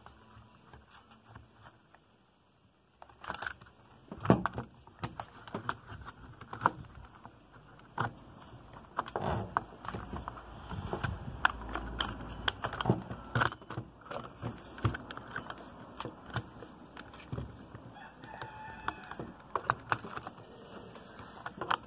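Plastic clicks, knocks and rattles as the housing of a STIHL MS 194 T chainsaw is handled and worked into place, in uneven bursts with a brief lull about a second in.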